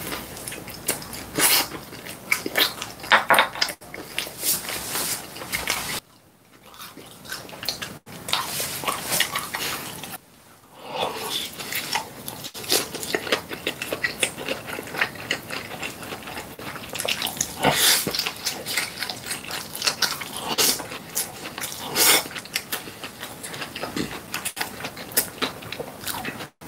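Close-miked biting and chewing of fried dumplings: many short, quick mouth clicks and smacks, broken by two brief pauses.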